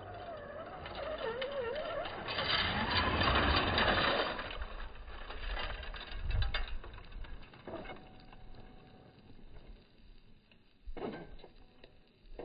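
The electric motor of a scale RC formula offroad truck revs and whines, rising in pitch from about two to four seconds in as the wheels spin and dig up a steep slope of loose gravel and sand. Short clatters and crunches of stones are thrown by the tyres.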